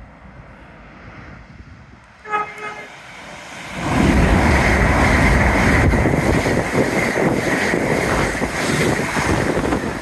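A train horn sounds one short note, then about two seconds later a train passes close by at speed, a loud steady rush and rumble that lasts to the end.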